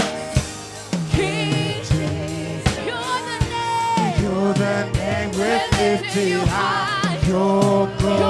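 Live church worship music: singers holding long notes with vibrato over a band with a drum kit keeping the beat.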